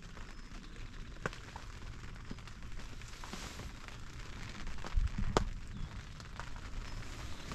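Rain pattering on a fabric hunting blind, with scattered sharp drop ticks over a steady hiss. A brief low rumble and a louder tick come about five seconds in.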